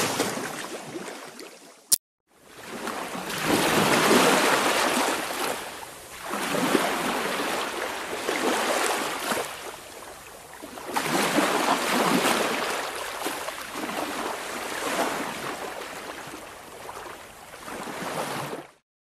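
Ocean waves washing onto a shore, swelling and falling back every three to five seconds. There is a brief dropout with a click about two seconds in, and the surf cuts off suddenly near the end.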